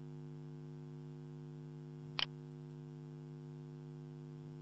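Steady electrical hum with a single mouse click about two seconds in.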